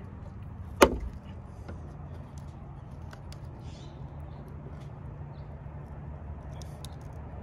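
A single sharp, loud click about a second in as a flathead screwdriver levers at the edge of a BMW's rear roundel emblem, followed by a few faint small clicks, over a steady low hum.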